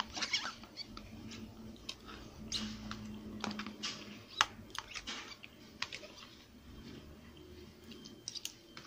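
Metal spoon scraping and clicking against a small bowl as the last of the macaroni salad is gathered up: a series of faint, irregular clicks and scrapes.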